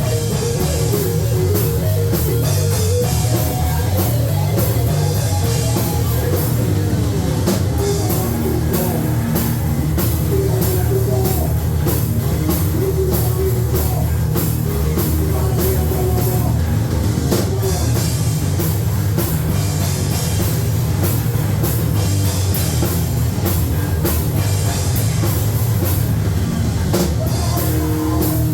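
Loud live heavy rock band playing: distorted electric guitars, bass and a pounding drum kit, recorded with a lot of distortion on the microphone.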